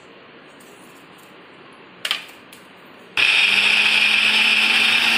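Electric mixer grinder starting about three seconds in and running steadily, grinding soaked chana dal coarsely for vada batter. A sharp knock comes just before it, about two seconds in.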